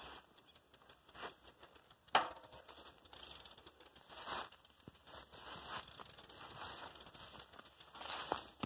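Footsteps and pushed bicycles brushing through dry grass and weeds: scattered rustling and crackling, with a sharp knock about two seconds in.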